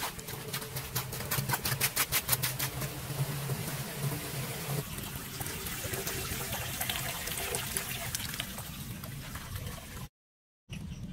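Muddy floodwater running and splashing at a street drain grate as leaves and debris are cleared from it by hand, with a fast run of clicks from about one to three seconds in. The sound cuts out briefly near the end.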